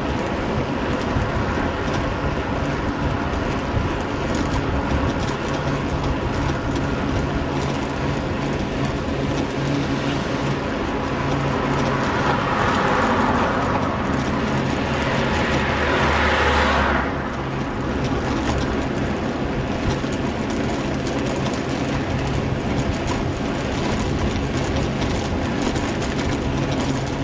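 Steady wind and road noise on the microphone of a camera riding on a moving bicycle along a town road, with traffic noise. A louder rushing swell builds about twelve seconds in and cuts off suddenly about five seconds later.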